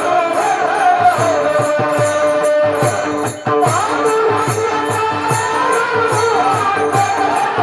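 Kirtan devotional music: a sliding melody over a steady drum beat, with small hand cymbals marking the rhythm. The sound drops briefly about three seconds in.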